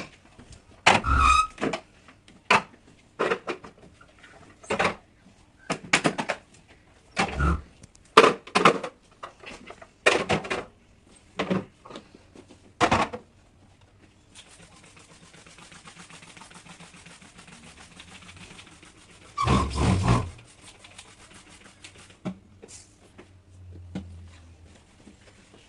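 Kitchen items being handled during cleaning: a string of separate knocks and clatters, then a steady hiss lasting several seconds with one loud clatter partway through.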